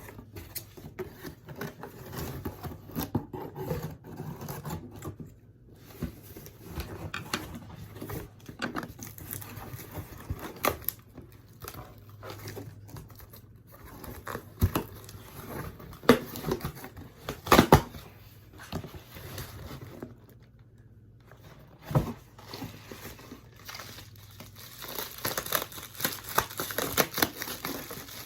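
Scissors cutting and prying open a glued-shut cardboard box, with snips, cardboard tearing and handling knocks. A few sharp knocks come in the middle, and denser crinkling near the end.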